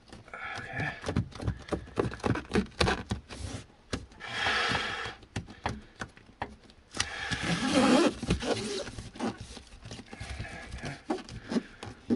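Foil-faced sound-deadening mat being handled and pressed onto a car body panel by hand: a run of light taps and knocks, with two longer bursts of crinkling foil, about four seconds in and again about seven seconds in.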